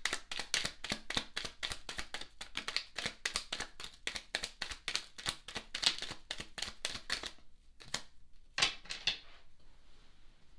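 Tarot cards being shuffled by hand: a rapid run of crisp card slaps at about five a second, stopping about seven seconds in, followed by a few scattered taps as cards are handled.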